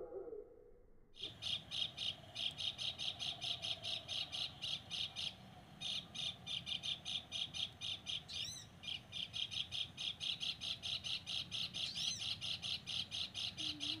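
Bird giving a rapid, repeated chattering call, about six notes a second in long runs with short breaks, starting suddenly about a second in. Two brief rising whistles cut in, one past the middle and one near the end.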